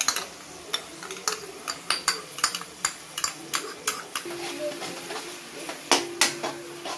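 Metal spoon clinking and scraping against a ceramic bowl as thick ketchup is scraped out, then a perforated metal ladle stirring sauce in an aluminium kadai, with a light sizzle. Sharp clicks come two or three a second, and a faint steady hum comes in about four seconds in.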